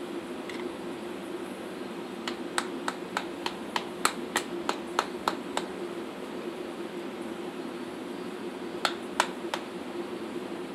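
Hammer tapping a toeing knife through the wall of a draft horse's hoof: a run of about a dozen sharp taps, about three a second, starting about two seconds in, then three more near the end.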